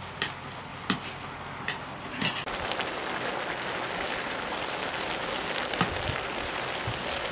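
A metal ladle stirring steaming boiled rice in a large metal pot over a wood fire: about four light clicks of the ladle on the pot in the first couple of seconds, with a steady hiss running underneath.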